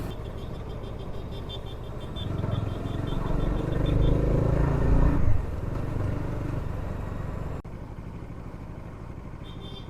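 Bajaj Dominar 400 motorcycle engine running on the move; the engine note builds for a few seconds, drops back about halfway through, then cuts abruptly to a quieter, steady run.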